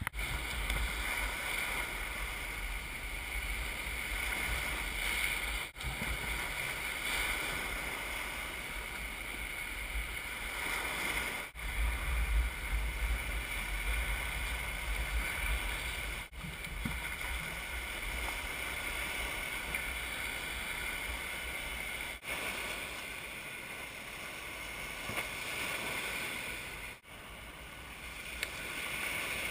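Small waves washing onto a sandy shore, with wind rumbling on the microphone. The sound drops out briefly about every five seconds.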